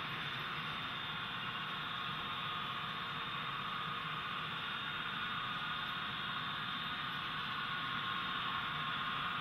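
HO-scale model freight train running on the layout: a steady hiss of wheels on rail and motor noise, with a faint even whine.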